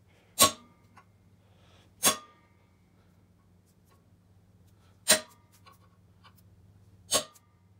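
Four hard hammer blows on a steel center punch, spaced a couple of seconds apart, marking hole centres in steel angle iron clamped in a bench vise. Each strike is a sharp metallic whack with a brief ring.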